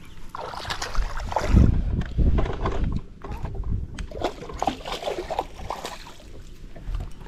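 A hooked fish splashing and thrashing at the water's surface as it is reeled in beside the boat. A low rumble is loudest between about one and three seconds in.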